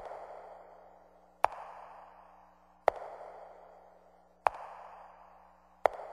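Slow, evenly paced footsteps, one sharp step about every second and a half, each followed by a long echoing tail that dies away before the next step.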